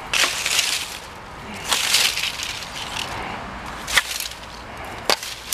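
Rustling and crackling of leafy vines and grass being pushed aside and pulled at, in two longer bursts, followed by a couple of short sharp clicks near the end.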